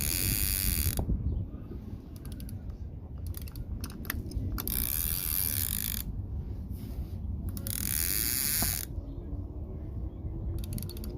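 A ratcheting mechanism clicking rapidly in bursts of about a second each, four times, with a few single sharp clicks between the bursts over a steady low rumble.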